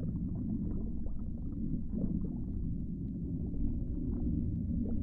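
Underwater ambience: a steady low rumble with faint scattered bubbling pops over it.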